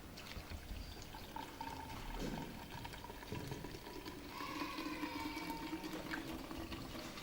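Water being poured into a container, a steady splashing pour with a faint filling tone in the second half.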